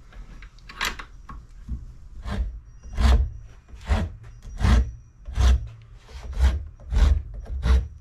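Hand rasp cutting into a wooden axe handle to shape the grip. It makes about ten rough, scraping strokes at a steady pace, roughly one every three-quarters of a second.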